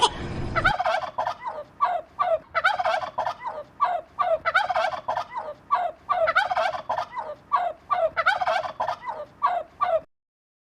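A bird calling over and over in short, rapid, rattling notes. The calls break off suddenly near the end.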